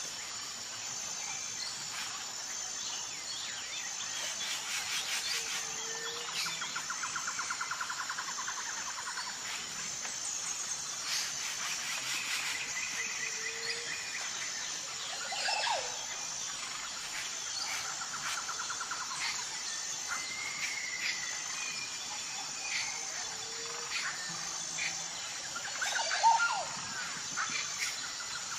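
Several wild birds chirping and calling over a steady background of insects. A rapid buzzy trill returns every few seconds, and one louder chirp comes near the end.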